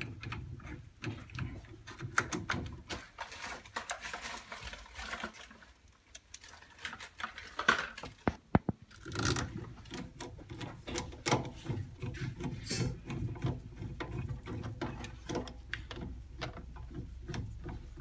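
Screws being turned in by hand with a screwdriver on a Grundfos central-heating pump in a gas combi boiler: irregular small clicks and scraping of metal on metal, with a couple of sharper clicks about eight seconds in.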